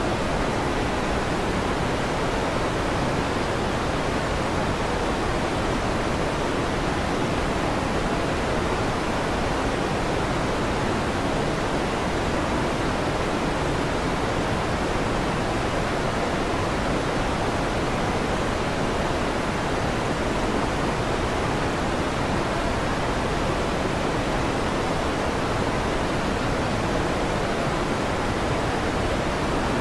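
Electric fan running with a steady, even whooshing noise that does not change.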